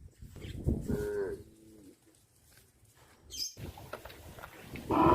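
A cow moos once, a short call that falls in pitch about half a second in. A brief hiss follows, then a louder sound starts just before the end.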